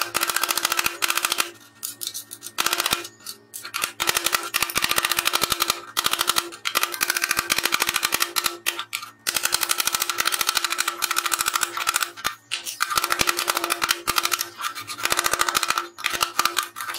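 Ball-peen hammer striking a rusted nut on the steel base plate of a cut-off saw: rapid metallic taps in quick runs of many blows, with short pauses between.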